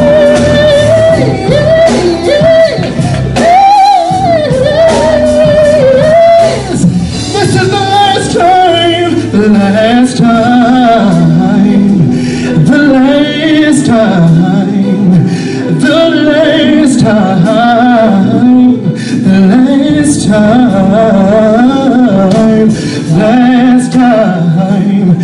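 Male singer ad-libbing wordless vocal runs, his pitch sliding up and down in long melismatic phrases, over a live band of keyboard and drum kit.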